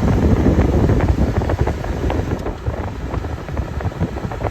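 Fedders 10,000 BTU window air conditioner running on high cool: its fan blowing a strong rush of air with a steady low rumble, the fan a bit out of balance. The rush gets somewhat quieter about two seconds in.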